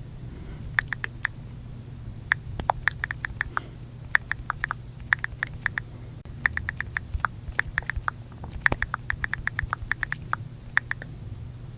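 iPhone on-screen keyboard click sounds: quick runs of taps, several keystrokes at a time with short pauses between the runs, over a faint low hum.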